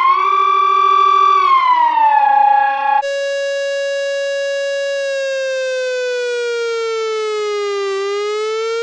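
Two recorded sirens played back to back. The first is a pitched siren tone that rises and falls. About three seconds in it cuts abruptly to a second siren, a slow wail that holds one pitch, sinks over a few seconds and then begins to climb again.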